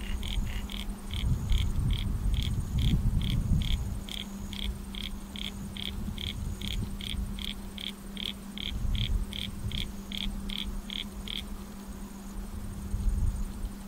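A frog calling in a long run of short, evenly spaced creaking notes, about three a second, that stops near the end.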